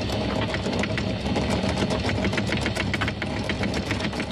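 A yacht's engine running steadily, with a fast, irregular clicking of a mechanism over it.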